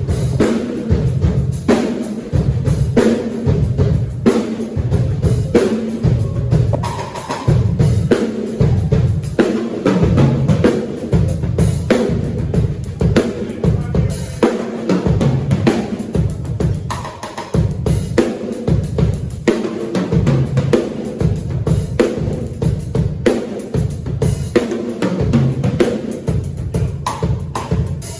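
Drum kit played continuously in a busy groove, with kick drum, snare and rim shots.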